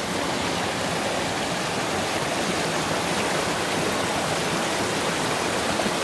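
Shallow mountain stream rushing over and between rocks in small cascades: a steady rush of water.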